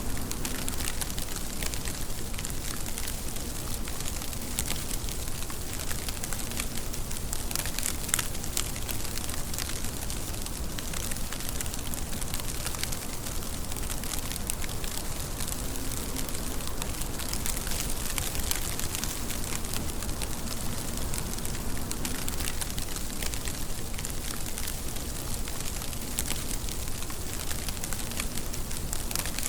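Steady rain falling, with many crisp individual drops pattering and crackling on a surface over an even hiss.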